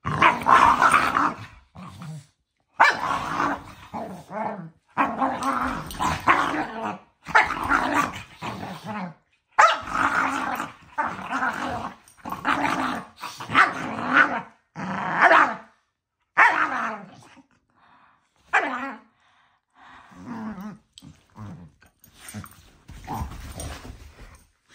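Two dogs growling at each other while play-fighting, in repeated rough bouts of a second or two. The growling comes in quick succession at first, then grows sparser and quieter in the last third.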